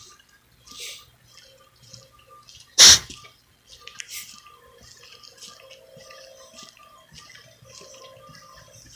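Marker strokes scratching on a surface in short bursts, with one loud sudden burst about three seconds in.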